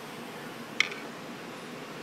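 A single sharp metallic click a little under a second in, from the aluminium fixture plate being handled or set down, over a steady background hiss.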